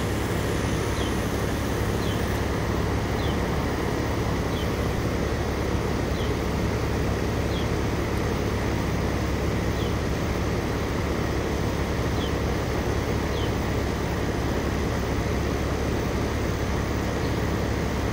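Rheem central air conditioner's outdoor condenser unit running: a steady rush of air from the fan over a constant low hum.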